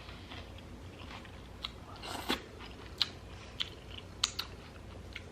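Close-up chewing of a carne asada taco in a crisp jicama wrap, with a series of short crunches starting about a second and a half in.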